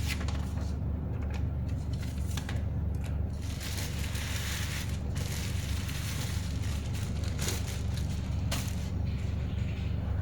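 Handling of paper and cardboard packaging: rustling and crinkling with scattered light clicks and knocks, loudest around the middle, over a steady low hum.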